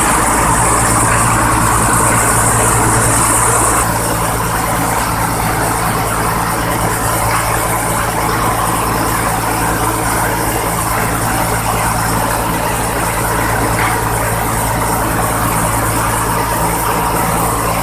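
Rice milling machine running steadily: an engine drone with a high hiss on top that eases off about four seconds in.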